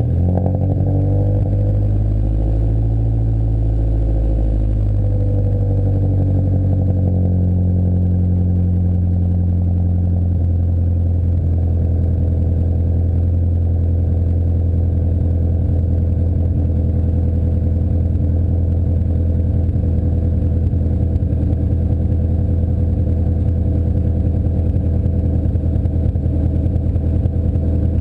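Honda Civic four-cylinder engine with a D16Y8 head and Blox Street Tuner Stage 1 cam, idling just after a start. The idle runs a little fast and uneven for the first few seconds, then settles to a steady idle about five seconds in.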